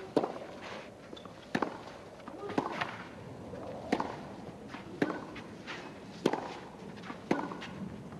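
Tennis rally on a clay court: sharp racket strikes on the ball about once a second, trading back and forth between the two players, over a low crowd murmur.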